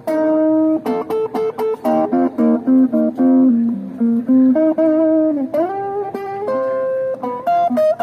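Guitar playing a melody of single plucked notes, with a few slides between notes.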